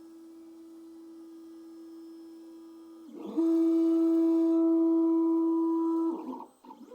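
Stepper motors of a Creality CR10 S5 3D printer whining at one steady pitch as the print head moves during a print. The tone grows much louder about three seconds in and breaks off about six seconds in, with short changeovers as the move changes.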